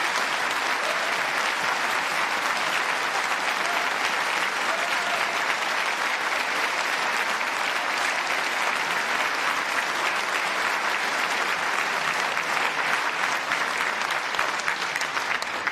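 A large audience applauding: dense, steady clapping that fades out at the very end.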